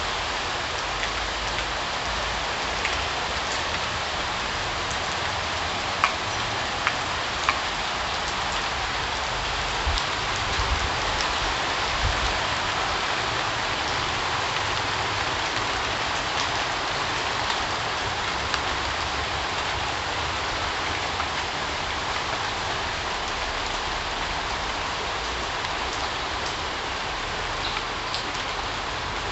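Steady rain falling, an even hiss with a few sharper drop ticks standing out about six to seven seconds in.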